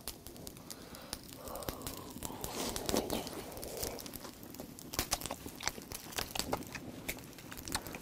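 Wood fire crackling with scattered sharp pops and snaps, more of them from about halfway through, under oysters and cockles roasting in their shells on the grill.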